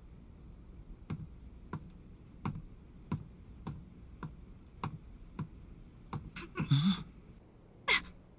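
Slow footsteps on a wooden floor, about nine even steps roughly two-thirds of a second apart. They are followed by a short, louder scraping sound and, near the end, a brief sharp squeak falling in pitch.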